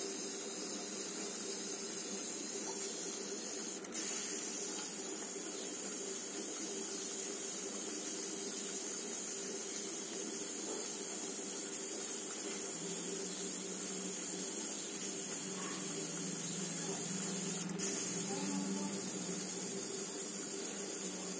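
Steady hiss from a pressure cooker of dal heating on a gas stove, with a faint steady hum under it. There is a brief click about four seconds in and another near the end.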